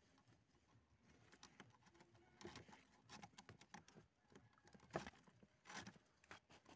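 Faint scattered clicks and light scraping of fingers and twine against the bamboo slats of a bed, becoming busier after the first second, with two louder knocks in the second half.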